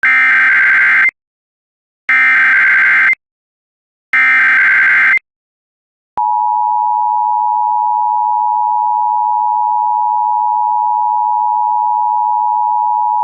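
Emergency Alert System tones: three one-second bursts of SAME digital header data, a second apart, then about six seconds in the steady two-tone EAS attention signal begins and holds.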